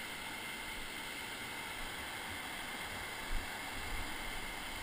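Whitewater rapids rushing over boulders, a steady hiss. A short low thump about three and a half seconds in, and a few smaller ones after it.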